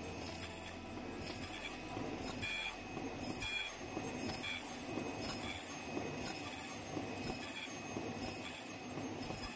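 Automatic N95 flat-fold mask head-band machine running in its production cycle. A steady mechanical clatter with short high-pitched tones and a high whine that repeat about once a second, one cycle per finished mask.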